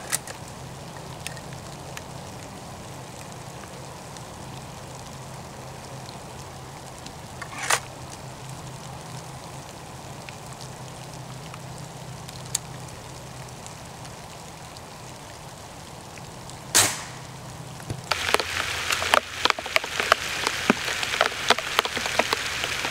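Two sharp reports from a Hatsan Model 95 .22 spring-piston air rifle firing, about nine seconds apart, over a steady low hum. Near the end the hum stops and a dense patter of small crackling ticks follows.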